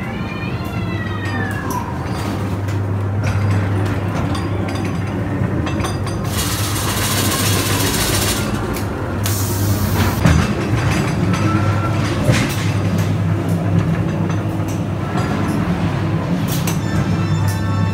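Dark-ride car rumbling along its track, with a steady low hum and scattered clicks and knocks. A short wailing tone rises and falls at the start, and two loud bursts of hiss come in the middle.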